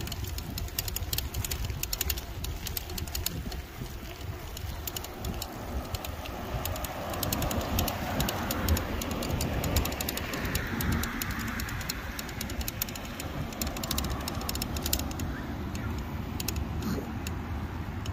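Wind buffeting the microphone and tyre rumble from an electric bike riding on pavement. A light, fast clicking rattle runs through most of it, and a louder swell of noise comes in the middle.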